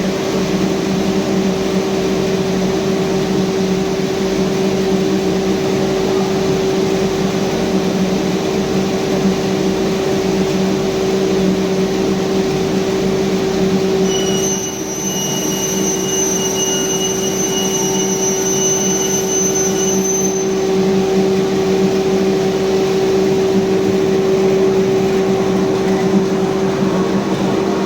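Sliding panel saw running, a steady machine hum with a noisy hiss over it. Partway through, a thin high whine joins for about six seconds.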